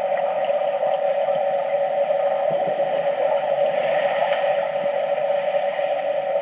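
Steady underwater hum heard in a swimming pool, with faint bubbling from divers' exhaled air about four seconds in.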